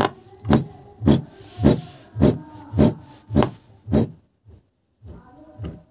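Bare 8-inch subwoofer, driven by a 200 W mono amplifier board, thumping out a music beat at a steady pace of about two beats a second, eight beats in all, then stopping about four seconds in.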